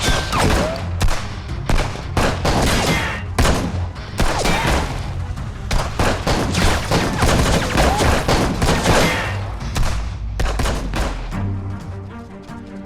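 A gunfight: rapid, repeated gunshots from several guns over tense background music. The shooting thins out near the end while the music carries on.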